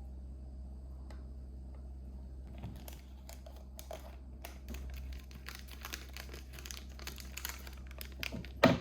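Toy packaging being handled: small plastic clicks, taps and crinkles, starting about two and a half seconds in and growing busier, with one louder knock near the end.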